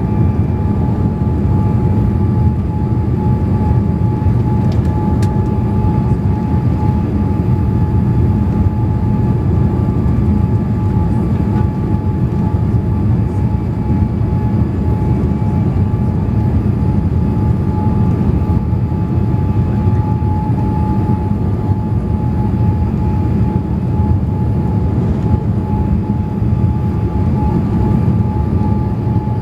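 Boeing 787 cabin noise on approach: a steady low rumble of airflow and engines with a constant high whine over it. The uploader takes the whine for hydraulic noise, probably set off by the flaps once deployed.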